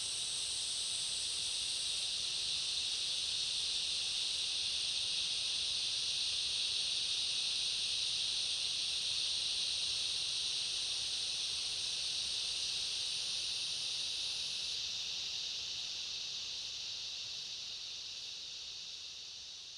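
Steady high-pitched insect chorus with a constant hiss. Its highest, thinnest tone stops about 15 s in, and the chorus fades out near the end.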